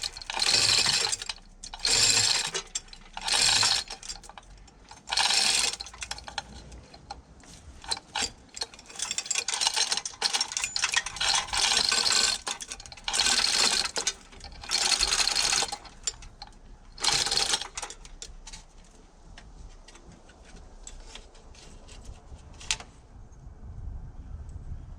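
A hand ratchet worked in quick strokes, giving bursts of rapid clicking about a second long, over and over, with a near-continuous run in the middle. After that come fainter scattered clicks and a single sharp click near the end.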